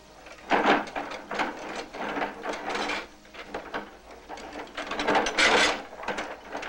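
Metal mop bucket and its wringer rattling and clattering in irregular bursts as a mop is worked in it, loudest about half a second in and again around five seconds in.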